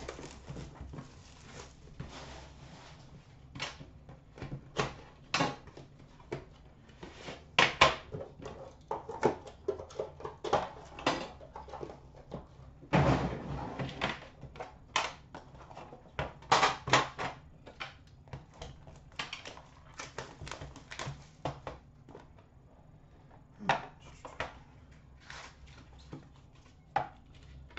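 Hands unwrapping and opening a hockey card box: plastic wrapper crinkling, with irregular clicks, taps and scrapes as the lid and inner box are handled.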